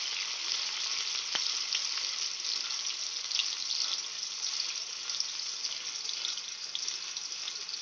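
Chopped tomato and green chillies sizzling in hot oil in a kadhai as they are stirred with a metal spatula: a steady crackling hiss, with a single sharp tap about a second and a half in.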